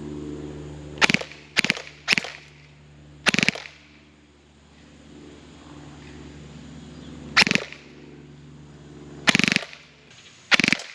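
Umarex Avalon electric airsoft AR pistol firing in short rapid-fire bursts: three quick ones in the first two seconds, then four more spread through the rest, each a sharp clattering rattle under half a second long.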